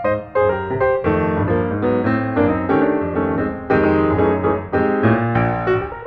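Background piano music: a brisk run of many short notes over low bass notes.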